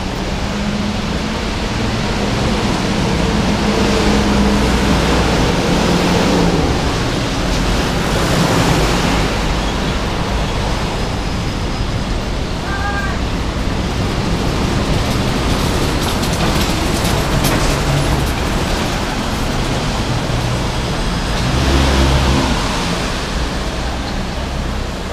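City road traffic: a steady rush of cars and other motor vehicles driving past, swelling with engine hum as vehicles pass close, loudest a few seconds in and again near the end.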